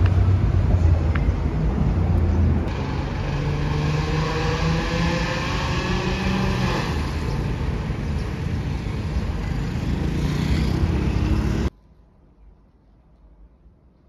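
City street traffic with wind on the microphone; a vehicle accelerates past in the middle, its engine pitch rising. The street noise cuts off abruptly near the end, leaving quiet room tone.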